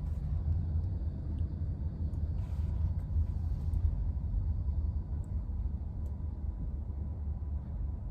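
Low, steady rumble of a car moving, heard from inside the cabin.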